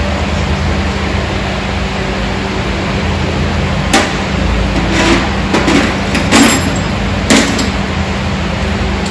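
A handful of short, sharp knocks and clatters of a tool on metal, starting about four seconds in, over a steady background hum.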